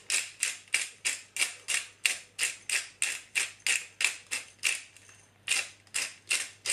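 Hand pepper grinder being twisted, grinding peppercorns in quick, even strokes about four a second, with a short pause about five seconds in.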